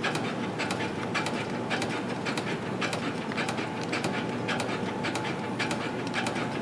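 YHM CF-308 CNC compression-spring coiling machine running in production, forming springs from 0.4 mm wire. A steady mechanical whir carries sharp clicks repeating at about two a second, one per machine cycle.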